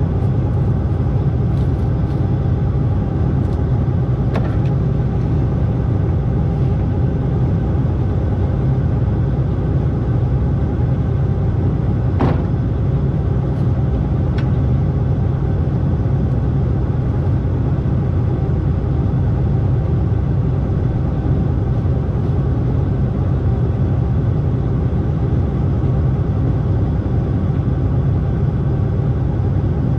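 Combine harvester's engine running steadily with a low rumble, and a few short clicks about 4, 12 and 14 seconds in.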